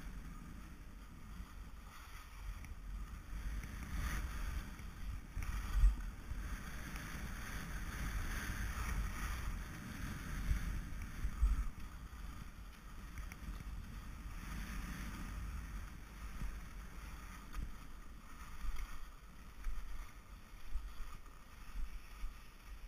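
Skis sliding and scraping over packed snow, with wind rumbling on the skier's camera microphone. Two sharper knocks come about six and eleven seconds in.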